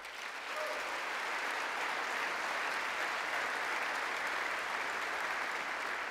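Crowd of legislators applauding, breaking out at once and holding steady.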